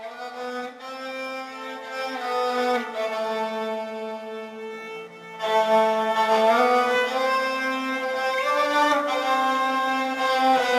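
Instrumental opening of an Argentine folk song: a violin-like bowed string instrument plays a slow melody of long held notes with small slides, over sustained accompanying notes. It gets fuller and louder about halfway through.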